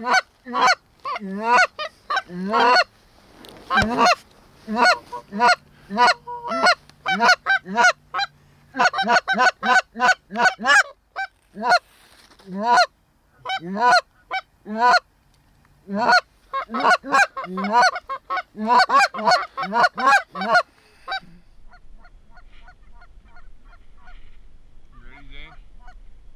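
Canada goose call blown by a hunter: rapid runs of short honks and clucks in quick bursts, calling to incoming geese. The loud calling stops about 21 seconds in, leaving only faint honks.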